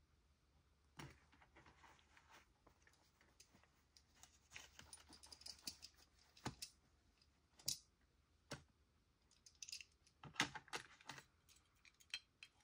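Faint, irregular clicks and light taps of small die-cast toy cars being handled and set down, in a quiet room.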